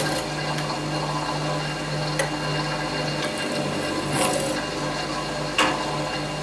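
Drill press running steadily as its bit drills holes through a thin steel angle plate, with four sharp clicks along the way.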